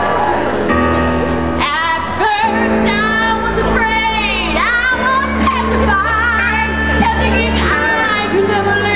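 A song from a stage musical performed live: pop-style singing over an amplified band or backing track with a steady bass line. The voices come in about two seconds in, with a marked vibrato on the held notes.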